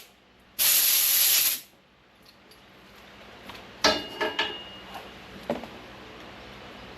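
A loud burst of spray hiss about a second long, then a few sharp metallic clinks with a brief ringing tone about four seconds in, and a few faint knocks after.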